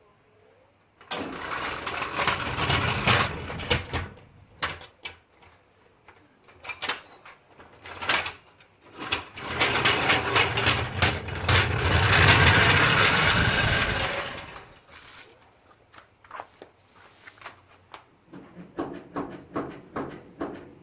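A small motorised tool running in two bursts, the first about three seconds long and the second about five, followed by scattered clicks and knocks.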